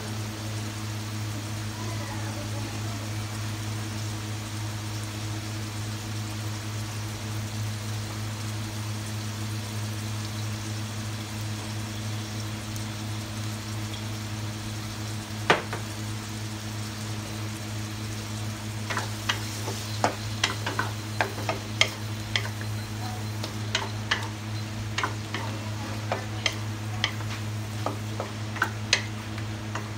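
Sea cucumber and garlic frying in a wok, a steady sizzle over a low hum. About halfway through there is a single sharp knock, and from about two-thirds of the way in a wooden spatula stirs the pieces, knocking and scraping against the wok in a run of sharp clicks.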